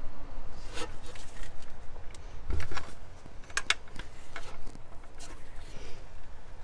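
Flathead screwdriver prying at a stuck PCV valve in the engine's intake: scattered clicks and scrapes, with a low thump about two and a half seconds in and a sharp pair of clicks near the middle.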